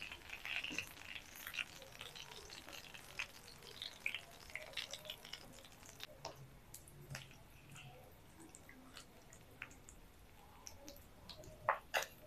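Hot oil faintly sizzling and crackling in a frying pan as fried egg chops are lifted out of it with a wire skimmer, the crackles thinning out over time. A few sharper clicks near the end.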